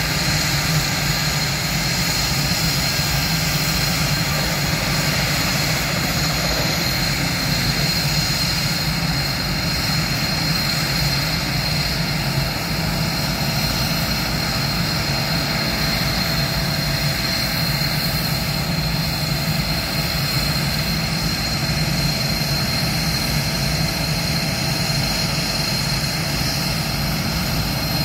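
Northrop F-5 fighter jets' twin J85 turbojet engines idling, a steady high turbine whine over an even low noise that does not change.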